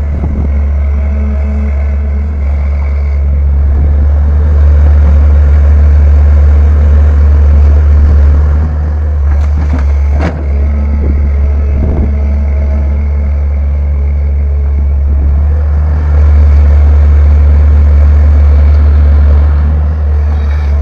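Caterpillar 320 excavator's diesel engine running with a steady low hum, getting louder under load twice, from about four seconds in and again in the last few seconds. A few knocks sound about halfway through.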